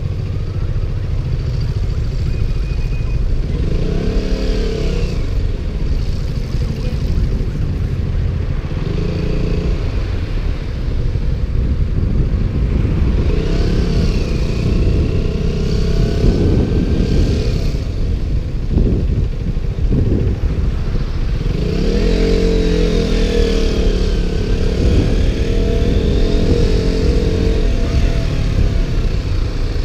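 KTM Duke motorcycle engine on the move, its pitch climbing and dropping several times as the throttle is opened and closed, over a steady low wind rumble on a GoPro mic inside its waterproof case.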